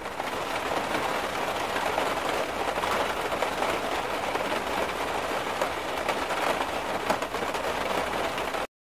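Heavy rainwater pouring and spraying down through the roof of a large station waiting hall and splashing onto the floor: a steady rushing hiss with scattered small spatters.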